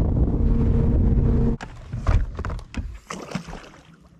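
Boat motor running with a steady hum under low wind rumble, which cuts off abruptly about a second and a half in. After that come scattered light knocks and clicks.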